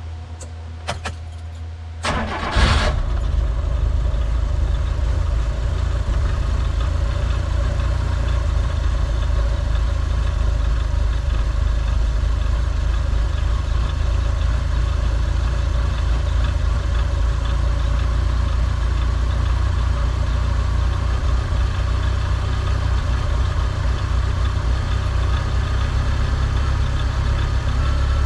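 Mitsubishi Varica 1.1 engine starting after a few clicks, catching about two and a half seconds in, then idling steadily; this is a first run after its cylinder head was skimmed and the head gasket replaced.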